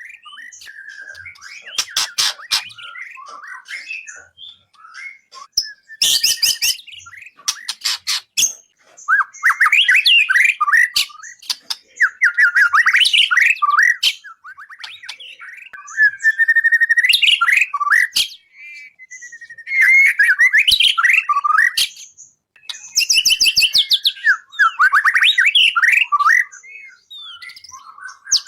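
Songbird singing in loud, rapid trilled phrases of about two seconds each, repeated with short pauses, with bursts of sharp clicking notes: masteran song for training a murai.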